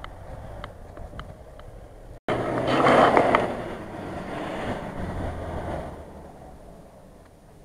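An SUV's engine running as it drives over soft mud, heard from a distance. The sound drops out for an instant about two seconds in. A much louder rush of noise follows, peaks about a second later and then slowly fades away.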